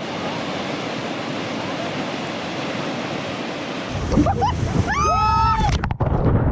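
Rushing whitewater, a steady loud roar of river rapids, deepening into a heavier rumble about four seconds in. Around five seconds a person gives a short, high yell that rises and holds briefly, and the sound breaks off abruptly just after.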